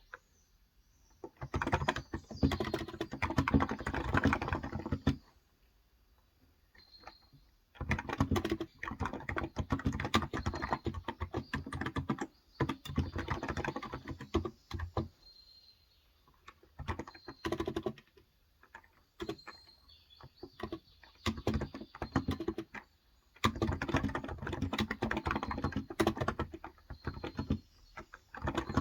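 Typing in bursts on a Cox Endeavour electro-capacitive (contactless) tenkeyless keyboard with 35 g switches. There is a pause of about two seconds around five seconds in, and sparser keystrokes in the middle.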